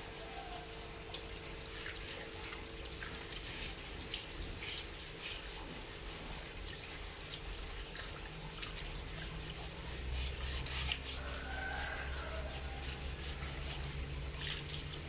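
Short, repeated scratchy strokes of a hand-held blade scraping hair off the wet, scalded skin of a wild boar carcass, with wet dripping sounds. A steady hum runs underneath, and a low rumble grows louder about two-thirds of the way through.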